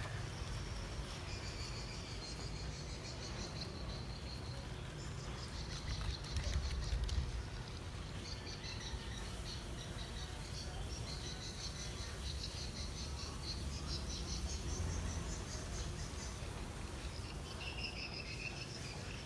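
Insects chirping in fast, pulsing trills, over a low rumble that swells briefly about six seconds in.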